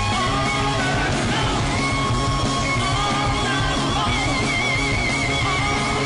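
Live hard rock band playing at full volume: electric guitar, bass and drums, with a lead line holding long, wavering notes high above the band, most plainly in the second half.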